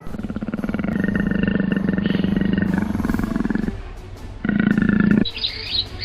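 A big cat roaring: one long pulsing roar, then a shorter second roar, followed by quick chirping calls near the end.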